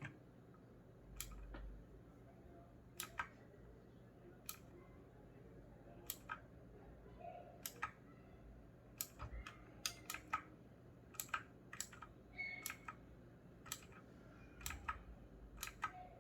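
Keys of a mechanical keyboard with clicky blue switches being pressed one at a time: faint, separate clicks at irregular intervals, some in quick pairs.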